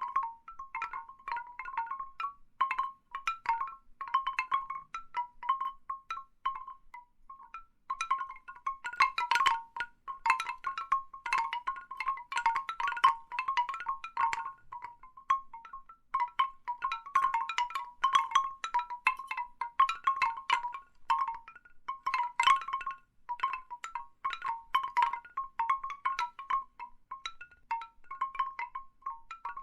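Large bamboo wind chimes, the hollow tubes knocking against each other in irregular clusters of pitched knocks. Quieter gaps come about a quarter of the way in and again about halfway.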